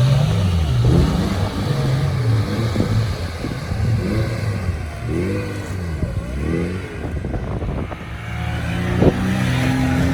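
An off-road vehicle's engine revving up and down repeatedly as it strains to pull free from being stuck, with a single sharp knock about nine seconds in.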